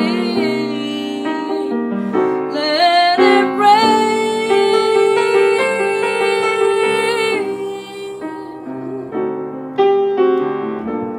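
A woman singing to her own piano accompaniment. She holds a long sung line with vibrato from about two seconds in to past seven seconds, and the piano carries on alone near the end.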